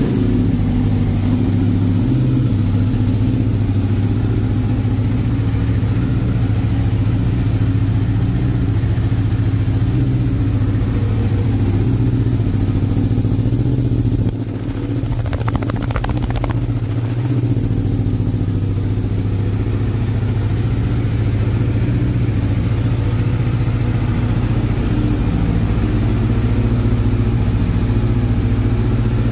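Aprilia RSV4 XTrenta's V4 engine idling steadily through its SC-Project full titanium exhaust, dipping briefly in loudness about halfway through.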